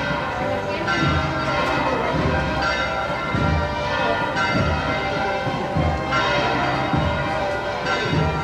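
Bells ringing in a slow series of strikes, about one every one and a half to two seconds, each ringing on into the next.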